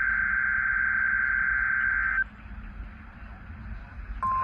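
Emergency Alert System SAME header over a radio: a harsh, buzzing digital data burst that cuts off sharply about two seconds in, followed by radio hiss. A steady single-pitch alert tone starts near the end.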